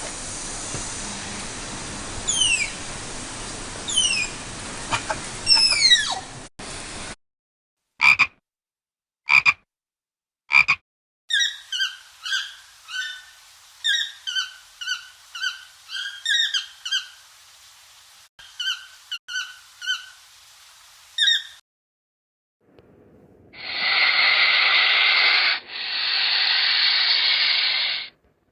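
A series of separate wild animal call recordings, one after another with short silences between. First come falling whistled calls over a noisy background, then three short calls, then a long run of quick, evenly repeated chirping or croaking calls, and near the end two long harsh calls.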